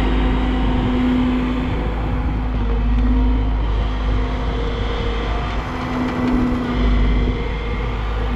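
Hyundai R140LC-9 crawler excavator's diesel engine running under load while its hydraulics dig, swing and dump sand. The steady drone swells and eases in waves as the arm works.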